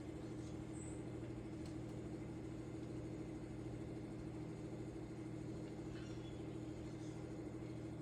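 Electric potter's wheel motor running at a steady speed, a constant low hum, with a few faint ticks.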